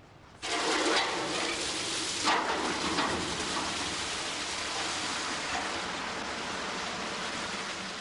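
Water gushing from filling pipes into a row of ice-block moulds, starting suddenly about half a second in and running steadily.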